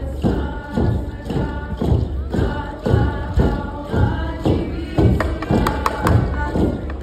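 Haida group singing with hand drums beaten in a steady beat, about two strokes a second, for a masked dance song.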